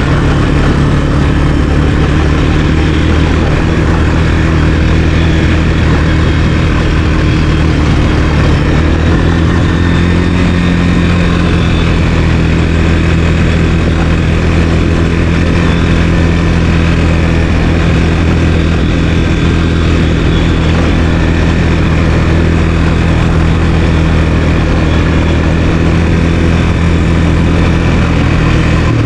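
Sport quad (ATV) engine running steadily under way, its note rising a little about nine seconds in.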